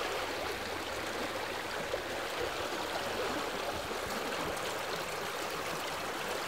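Steady beach ambience: an even wash of small freshwater lake waves on the sand, with the faint chatter of distant beachgoers in it.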